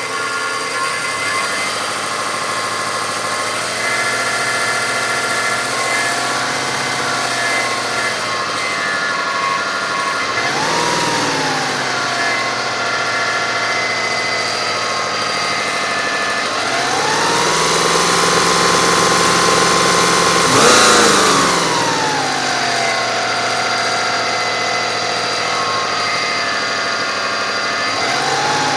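2005 Kia Sedona's 3.5-litre V6 idling, then revved: a short rise about ten seconds in, then held at higher rpm for a few seconds past the middle with a brief peak before dropping back to idle. The idle carries a noise that appeared after a timing belt and water pump replacement; it goes away when the revs come up and returns at idle.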